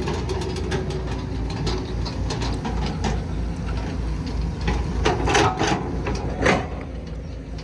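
Excavator's diesel engine running steadily with a low pulsing rumble, with scattered knocks and clatters and a few louder sudden clanks around five to six and a half seconds in.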